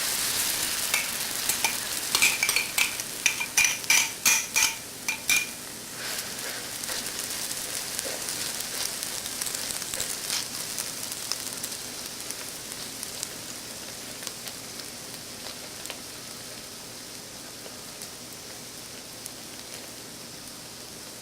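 Pancake batter sizzling in hot cooking oil in a wok, just after it has gone in. A run of sharp crackles comes over the first five or six seconds, then it settles into a steady sizzle that slowly grows quieter.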